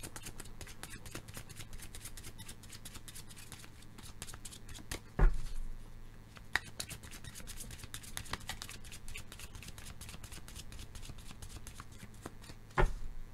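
A deck of tarot cards being shuffled by hand: a fast, steady patter of card-edge clicks, broken by two louder thumps, about five seconds in and near the end.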